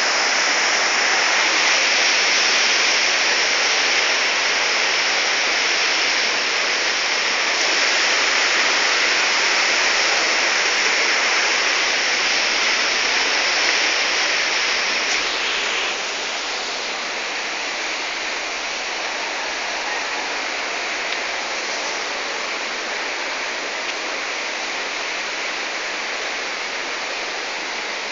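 Steady rush of flowing or falling water, an even hiss with no breaks, which drops a little in level a bit past halfway.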